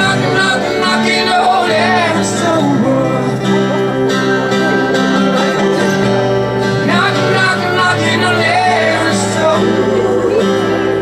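Live acoustic music: steady, held low drone notes under a wavering, ornamented high melody line that bends in pitch.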